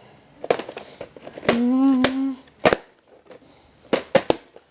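A series of sharp clicks and knocks, like objects being handled at close range, with a short steady pitched hum about a second and a half in.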